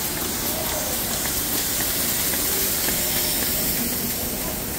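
Steady factory-floor background noise, an even hiss over a low rumble, from a bottling plant whose line is stopped for a changeover.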